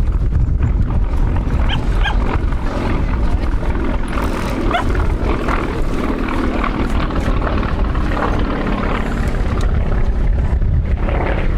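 Yakovlev Yak-50's nine-cylinder M-14P radial engine running through an aerobatic display, a loud, steady rumble.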